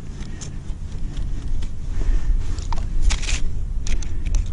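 Wind rumbling on the microphone, with scattered small clicks and a short scraping crunch about three seconds in as a plastic ice-fishing tip-up is wound in and lifted out of the hole in the ice.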